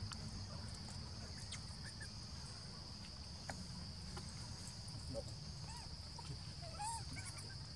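Steady high-pitched drone of insects over a low rumble, with a few faint short chirps near the end.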